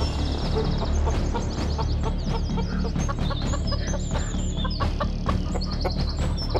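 Chickens clucking, with small birds chirping and trilling high above them.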